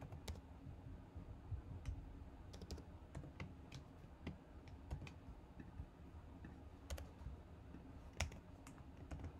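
Faint, irregular clicking of typing on a computer keyboard.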